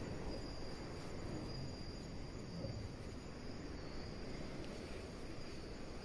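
Crickets chirping: a thin, high, steady trill that swells and fades, over a low rumble.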